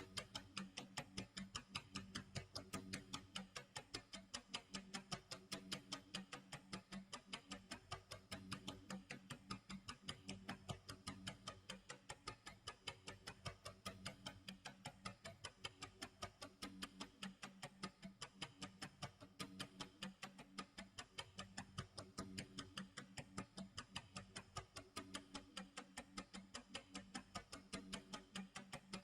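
Clock tick-tock sound effect: rapid, even ticking that never breaks, over a steady low tone.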